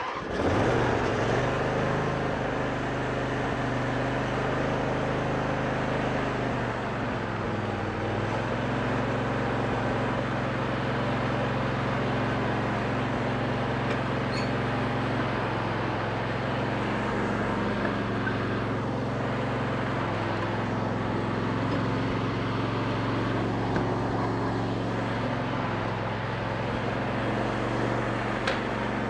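Twin-cylinder Briggs & Stratton engine of an MTD riding lawn tractor catching on the electric starter and then running steadily, its note shifting briefly about seven seconds in. It starts now that its intake valves, found far too loose, have been adjusted.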